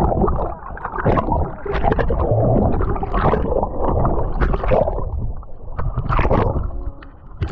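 Sea water gurgling and splashing around a camera's microphone as it dips under the surface and comes back up, with a muffled underwater rumble and irregular splashes.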